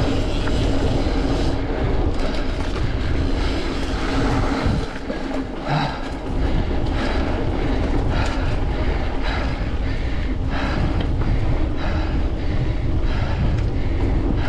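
Mountain bike riding fast over a dirt singletrack: a steady loud rush and rumble of wind and tyres, with scattered knocks and rattles as the bike goes over bumps. It eases briefly about five seconds in, then picks up again.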